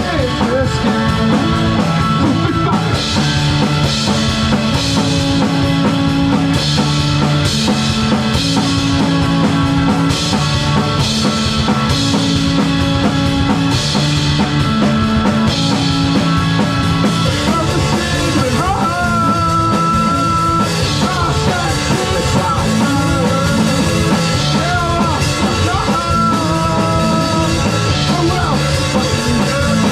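A rock band playing live, loud and continuous: drum kit and sustained guitar chords, with a voice-like melody line gliding over it in the second half.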